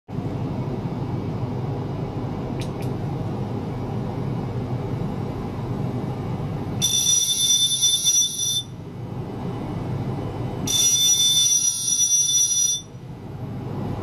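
Two bursts of high-pitched buzzing, each about two seconds long and starting and stopping abruptly, the first about halfway through and the second near the end. A steady low hum runs underneath.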